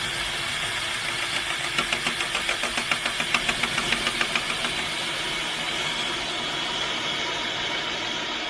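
Electric drill running a hole saw through a jig into a solid pine door, boring the knob hole. The sound is steady, with a run of rapid pulses, about four a second, from about one and a half seconds in to near the middle.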